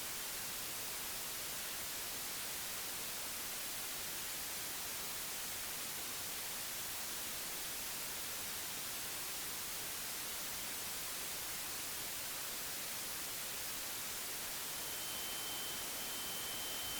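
Steady static hiss like white noise, even in level throughout. A thin, high-pitched steady tone joins it about two seconds before the end.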